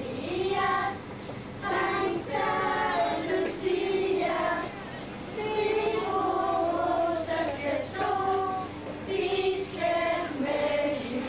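A group of girls singing a Lucia procession song together, in held melodic phrases with short breaths between them.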